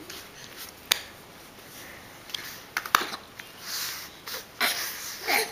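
Baby's quiet breathy giggles, a few soft huffs and clicks, with two short rising squeaks near the end.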